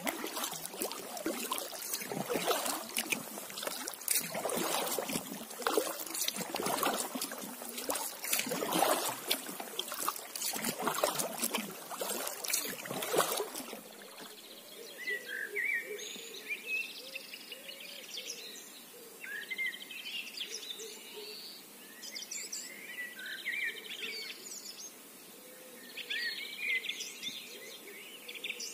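Kayak paddling: paddle strokes and water splashing, swelling every second or two. About halfway through it cuts off suddenly, leaving birds calling in short chirps over a faint steady hum.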